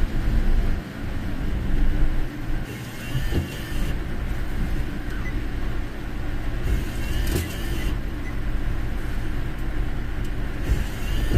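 Car interior noise while driving: a steady low rumble of engine and tyres heard from inside the cabin.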